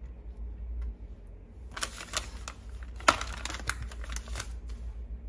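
Hands handling cheese slices and their packaging at a kitchen counter: a run of light clicks and crinkles through the middle, with one sharper click, over a low steady hum.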